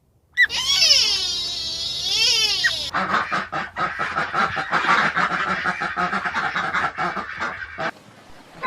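Animal calls: first a few seconds of pitched calls that sweep up and down, then about five seconds of rapid, choppy duck quacking that stops near the end.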